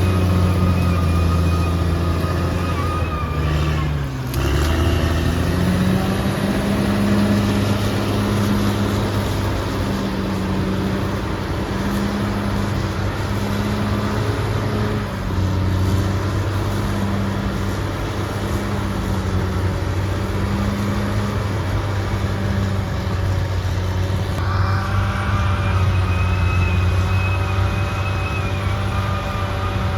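Caterpillar D6R XL bulldozer's diesel engine running steadily under load. The engine sags in revs briefly about four seconds in and picks back up. A higher whine joins in about 24 seconds in.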